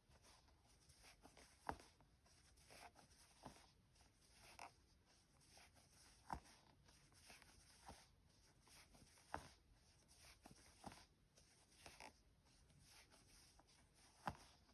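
Faint, scratchy rustling of a metal crochet hook drawing plush yarn through stitches, with a few soft clicks spread through it.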